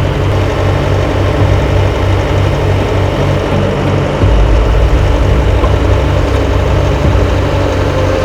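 Chainsaw engine running steadily under load while cutting into wood.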